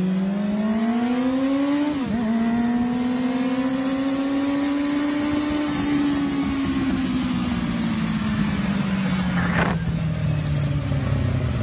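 Sport motorcycle engine held at high revs through a long wheelie: the pitch climbs at first, dips briefly about two seconds in, then holds and slowly sinks. A short sharp pop comes about two seconds before the end.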